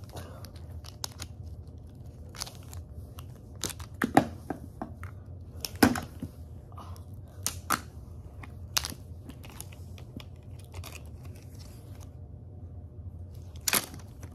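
Plastic action figures handled and knocked together, giving scattered sharp clicks and clacks with a few louder knocks. Near the end a figure is slammed onto a plastic toy motorcycle with a loud clatter.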